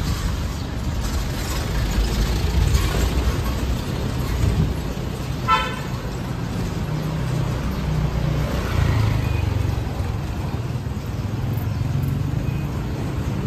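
Low rumble of a small motor vehicle's engine running close by on a street, with one short horn beep a little over five seconds in.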